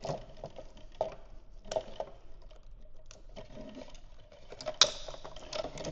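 Light plastic clicks and taps of a flathead screwdriver prying at the plastic retaining clips of a Honda Civic factory fuel pump module, with one sharper snap near the end.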